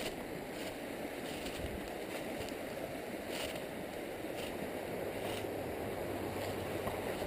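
Trout stream running, a steady rush of flowing water, with a few faint ticks over it.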